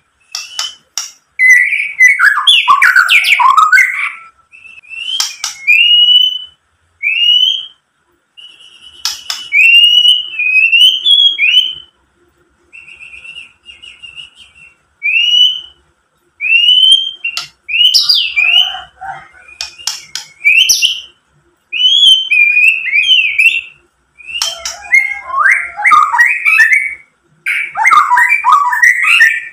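Male white-rumped shama (murai batu) singing: a string of clear rising whistled notes with short pauses, broken by fast, jumbled phrases of chattering notes near the start and end, with a few sharp clicks.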